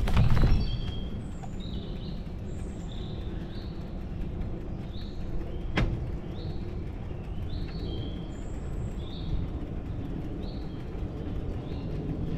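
Birds chirping in short, repeated high notes over steady low wind and rolling noise from a moving bicycle, with a thump at the very start and a sharp click about six seconds in.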